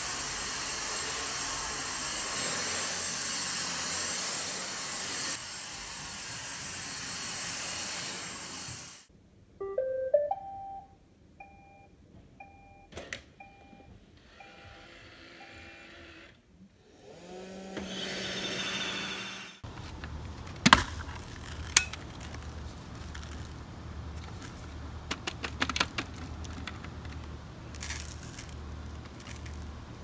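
Dyson cordless stick vacuum running on carpet, a steady high hiss that cuts off about nine seconds in. After it come a string of short electronic beeps, a brief rising whir, and a low steady hum with scattered clicks.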